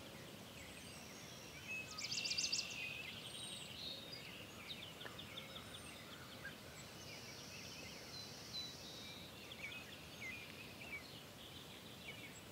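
Faint outdoor ambience with small birds chirping and calling throughout; a rapid high trill about two seconds in is the loudest call.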